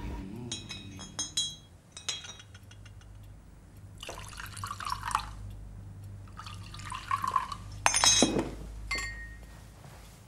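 Glasses clinking at a drinks bar, with a drink poured from a bottle into a glass around the middle and another sharp clink near the end.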